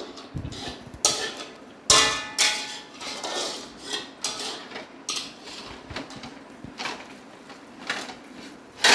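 Dishes and metal utensils clattering: several sharp clinks and knocks at irregular intervals, each with a short ring, the loudest about two seconds in.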